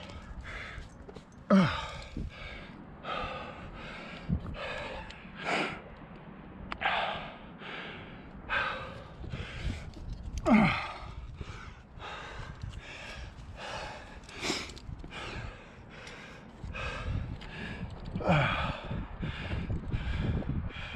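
A rock climber's hard breathing from exertion in a hand-jam crack, a quick breath about every second, with a few exhales that drop in pitch like a groan.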